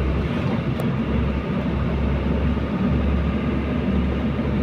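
Truck engine running steadily with road noise as the truck drives, heard from inside the cab.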